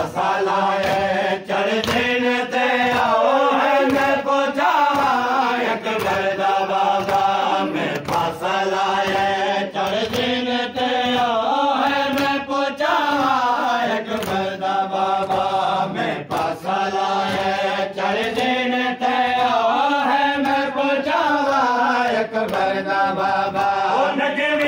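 Men chanting a Muharram lament (noha) in a continuous, gliding melodic line, over a steady run of sharp strikes.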